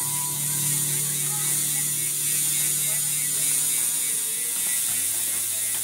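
Raze Pro rear hub freewheeling as the wheel coasts: its pawls click so fast and close together that they run into a continuous wasp-like buzz.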